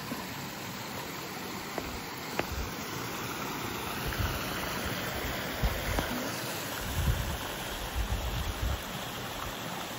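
A small creek rushing steadily. From about four seconds in, irregular low rumbles of wind on the microphone come and go.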